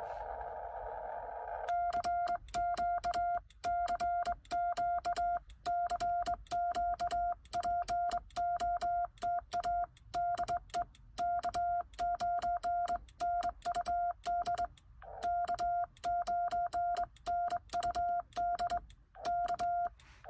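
Morse code sidetone from a Xiegu X6100 transceiver, keyed by hand on a home-brew cootie sideswiper: a steady mid-pitched beep broken into dots and dashes, with a sharp click at the start and end of each element. For about the first two seconds, before the sending begins, the receiver's band-limited hiss is heard instead.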